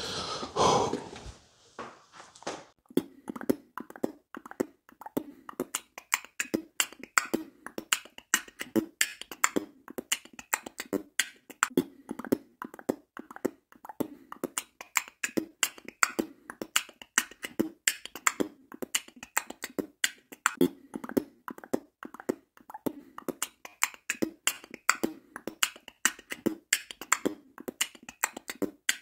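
Outro music with a quick, steady percussive beat, opened by a brief whoosh that fades over the first couple of seconds.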